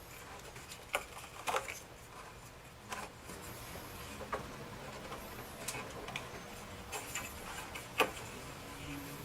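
Scattered light clicks and knocks of plastic gun-vise parts being handled and fitted, at an uneven pace, with one sharper knock about eight seconds in.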